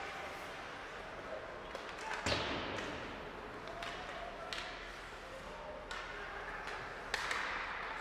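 Ice hockey game in a rink: sharp clacks of sticks and puck, with a loud thud about two seconds in and another sharp crack near the end, over a murmur of spectator voices.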